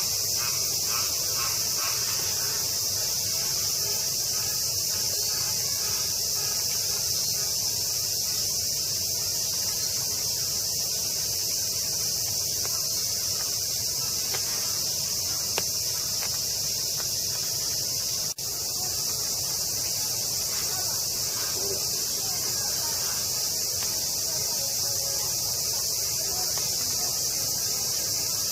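Steady chorus of cicadas, a continuous high-pitched buzz with no pauses, broken only by a brief dropout about two-thirds of the way through.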